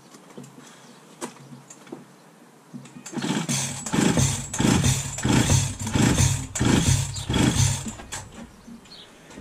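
Husqvarna 346XP two-stroke chainsaw pulled over on its recoil starter cord again and again for a compression test, a rhythmic run of pulls about two a second starting about three seconds in and stopping near the end. The owner suspects weak compression.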